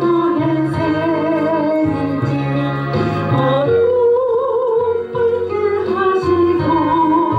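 Music: a Christian praise song, a melody line with vibrato over a backing track with steady repeating bass notes.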